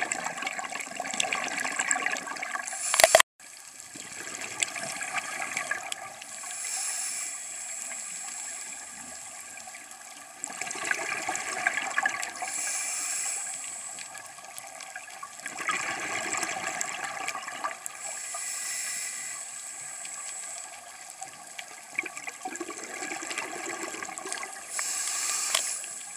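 Scuba diver breathing through a regulator, heard underwater: a hiss on each inhale alternating with a bubbling rush on each exhale, about one breath every five to six seconds. A short loud burst and a brief cut-out about three seconds in.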